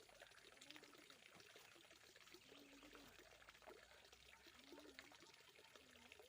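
Faint trickling water, with small ticks and splashes, at a very low level close to silence.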